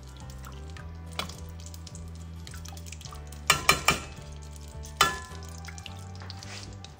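Metal spoon stirring stock in a stainless steel saucepan, clinking sharply against the pan three times in quick succession about halfway through and once more a second later.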